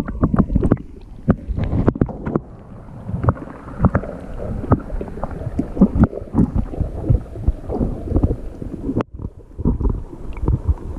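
Water moving and sloshing around a camera held underwater in a shallow creek, heard muffled through the housing, with many irregular knocks and bumps.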